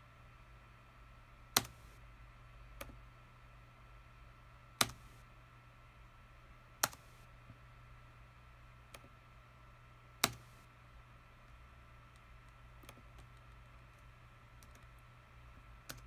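Scattered clicks from operating a computer's mouse button and keys: four sharp, loud ones about a second and a half, five, seven and ten seconds in, with fainter ones between. Under them runs a steady low hum with a faint high tone.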